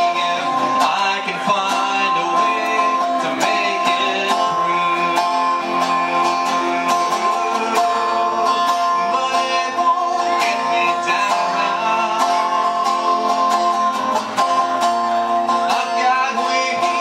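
Guitar strummed through a song, chords ringing under a repeated strumming stroke.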